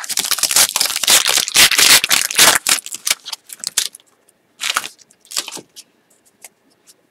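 Foil wrapper of a hockey card pack being torn open and crinkled in the hands: dense crackling for about three seconds, then a few short crinkles as the cards are slid out.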